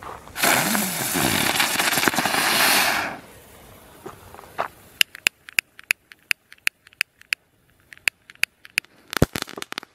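Ground fountain firework spraying sparks: a loud hiss for about three seconds that stops abruptly, followed by a run of separate sharp pops and crackles.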